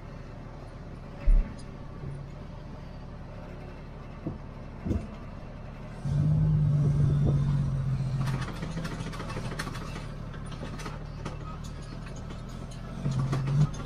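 Freightliner FL70 truck's diesel engine running steadily, heard from inside the cab, with a thump about a second in. About six seconds in the engine revs up as the truck pulls away, and the cab starts to rattle and click.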